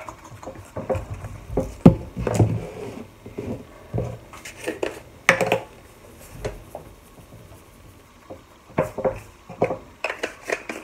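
Kitchen handling noises as spice containers are picked up, shaken and set down on the counter: irregular taps, clicks and clatters, with a sharp knock about two seconds in and a busier run of clicks near the end.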